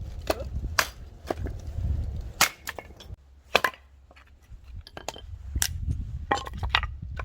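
Firewood being chopped: a run of sharp, irregular wooden knocks and cracks, several a second at times, over a low rumble.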